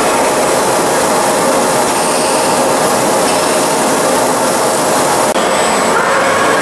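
Steady, dense machinery noise from a robotic sanding cell, with an abrupt change a little over five seconds in.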